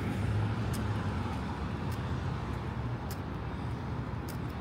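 City street traffic noise: a steady low rumble of passing motor vehicles, strongest in the first second or so and easing off, with a few light ticks over it.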